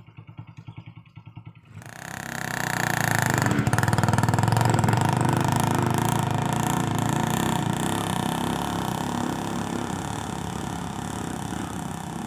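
Small single-cylinder motorcycle engine idling with an even putter, then revved hard about two seconds in and held at high revs.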